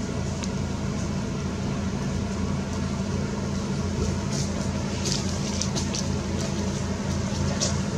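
A steady low mechanical hum, like a running engine, with light dry crackles from about halfway through.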